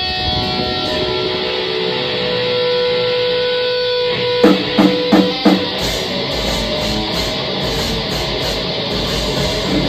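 Black metal band playing live: distorted electric guitar holding long notes, then four short accented hits from the band about four and a half seconds in. After that the full band comes in with fast, dense drumming under the guitars.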